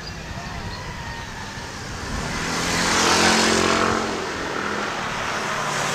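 A motor vehicle passes close by: its engine hum and road noise rise to a peak about three seconds in, then fade.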